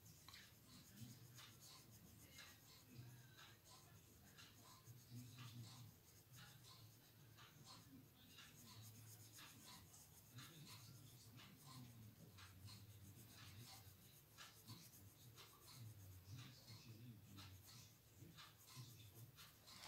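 Coloured pencil scratching faintly on paper in many short, irregular strokes as it shades in a drawing.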